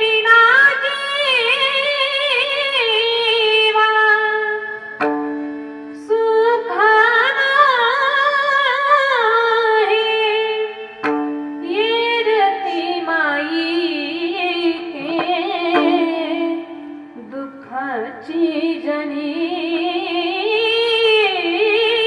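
Indian devotional singing: a voice sings a richly ornamented, wavering melody in four long phrases over steady sustained drone notes.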